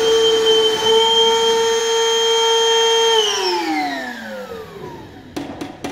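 Milwaukee M18 cordless wet/dry vacuum running with a steady high whine, then switched off about three seconds in, its pitch falling as the motor spins down. A few sharp knocks near the end.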